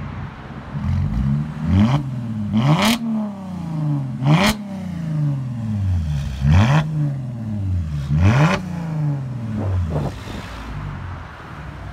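A Mercedes C350's 3.5-litre V6 is revved in a series of quick blips through a straight-piped exhaust with an X-pipe and no mufflers. Each rev climbs sharply to a loud, raspy peak and then falls back, about six times over.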